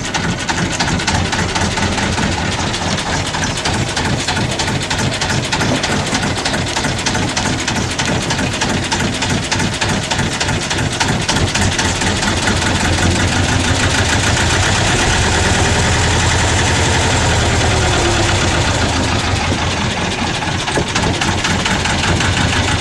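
Boat engine running steadily, heard from inside the wheelhouse, growing somewhat louder about halfway through.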